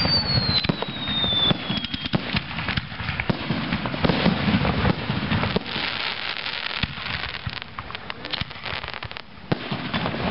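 Aerial fireworks going off: shell bursts banging and crackling in quick, dense succession. A high whistle falls in pitch over the first two seconds.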